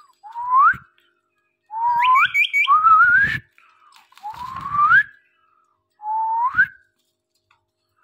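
Rose-ringed parakeet whistling: five separate rising whistles, each under a second long, one of them wavering in pitch, with three quick high chirps over another.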